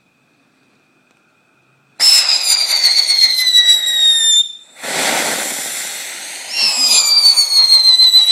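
Consumer firework going off about two seconds in: a loud, shrill whistle sliding slowly down in pitch, then a burst of loud hissing, then a second falling whistle.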